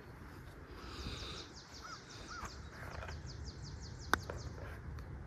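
A putter strikes a golf ball once with a sharp click about four seconds in. Birds call throughout: a rapid high trill of about eight notes a second, and two short chirps.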